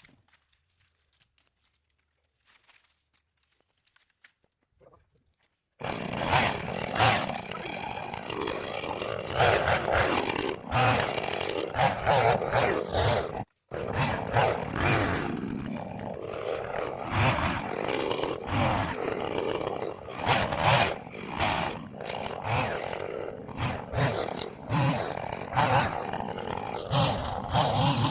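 Husqvarna chainsaw running and revving up and down as it cuts a downed limb, starting abruptly about six seconds in after a quiet stretch, with a brief break in the middle.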